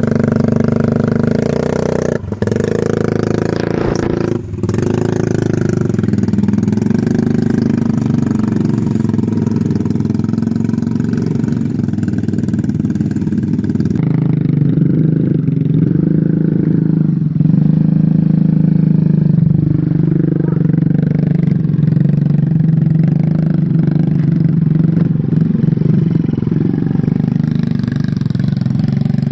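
Motorcycle engine running steadily while being ridden, with two brief dips early and a change in engine tone about halfway through.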